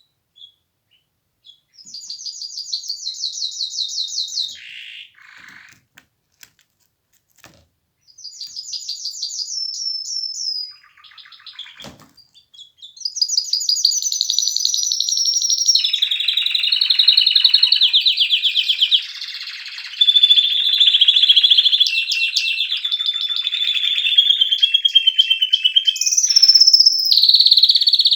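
Domestic canary singing: two short phrases of rapid trills, then from about halfway a long unbroken song of rolling trills that change pitch from one to the next.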